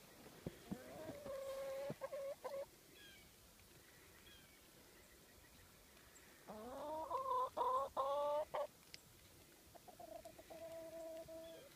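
Chickens calling: a drawn-out call about a second in, a louder call about halfway through that rises in pitch and breaks into several pulses, and a steady drawn-out call near the end.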